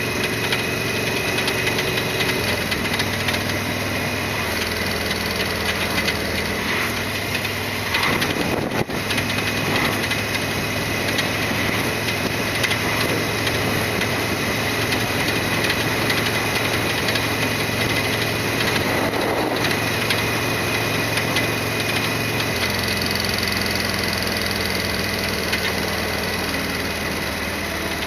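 Harley-Davidson Sportster 1200 V-twin engine running steadily. Its pitch and tone shift about two-thirds of the way through.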